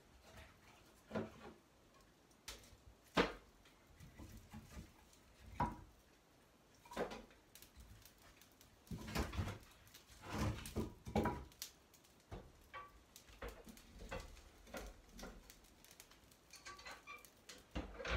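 Firewood being handled and fed into a wood stove: scattered knocks and clunks of logs and the stove's door, with a sharp knock about three seconds in and a busy run of clatter in the middle.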